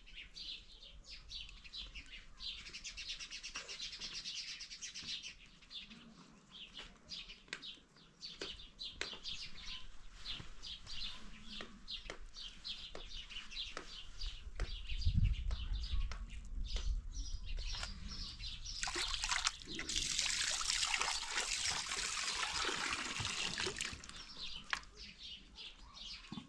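Small birds chirping repeatedly throughout. A low rumble comes about halfway through, and a dense rushing noise, like running water, lasts about five seconds near the end.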